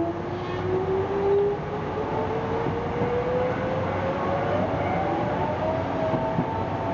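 Hankyu electric train accelerating: its traction motors whine in a tone that rises smoothly and steadily in pitch as speed builds, with a second, higher whine joining about halfway through, over a steady rush of running noise.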